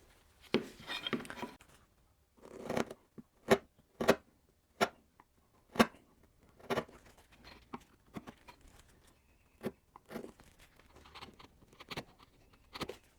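A sharp chisel hand-paring waste from a blackwood tenon by body weight, with no mallet: about a dozen short, crisp cuts at irregular intervals, some with a brief scrape between them.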